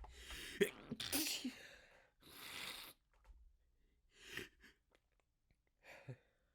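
A person in a sneezing fit, induced with chhinkni snuff and by hand. A sharp sneeze comes about half a second in, a longer one follows straight after, then a noisy rush of breath and two smaller sneezes near the end.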